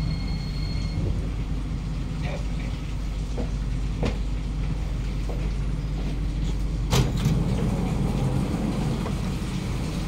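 Inside a C151B MRT train carriage pulling into a platform: a steady low rumble with a high whine that cuts off about a second in, a few light clicks, then a sharp clack about seven seconds in as the doors open, after which the noise grows louder and fuller.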